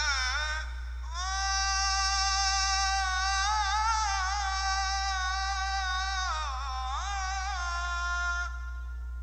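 Background music: one high, wavering melodic line, a brief phrase at the start, then a long phrase of sustained, sliding notes that ends about a second before the close, over a steady low hum.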